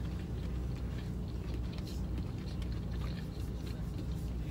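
A steady low background hum with faint, scattered small clicks and handling noises.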